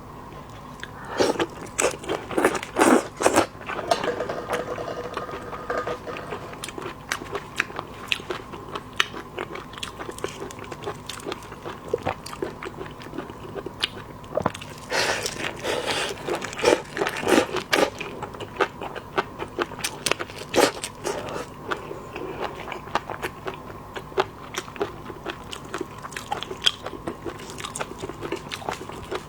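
Seafood being chewed close to the microphone for ASMR: many short crunchy bites and clicks, with heavier crunching about two seconds in and again around fifteen to eighteen seconds in.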